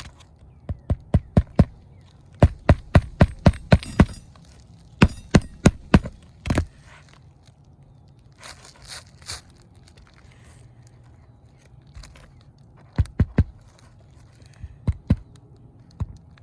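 A hammer driving roofing nails into asphalt shingles: quick runs of sharp taps, several strikes per nail, in groups through the first six seconds and again near the end, with a little rustling of shingle in the quieter middle.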